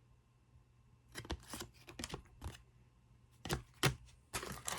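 Trading cards and foil card-pack wrappers being handled: a few scattered clicks and taps, then crinkling of a wrapper starting near the end.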